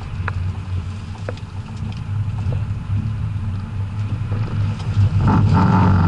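BMW E61 535d Touring's three-litre twin-turbo straight-six diesel running steadily under load, then getting clearly louder about five seconds in as the car accelerates hard.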